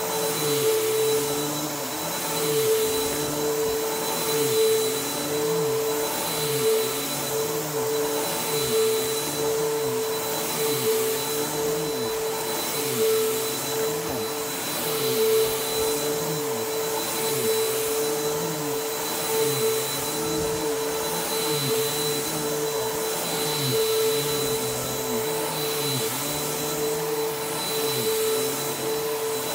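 Bissell PowerForce Helix upright vacuum cleaner running with a steady motor whine. Its lower hum rises and falls in a quick, even rhythm, about three times every two seconds, as it is pushed back and forth over the floor.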